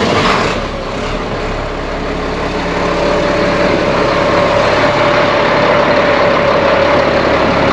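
Truck engine idling steadily through its freshly welded exhaust system, running quiet.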